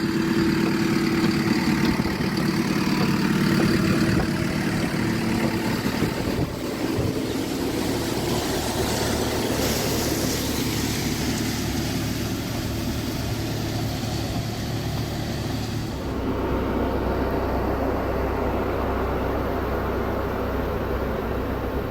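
Engine of heavy equipment running steadily while working, its sound changing about six seconds and again about sixteen seconds in.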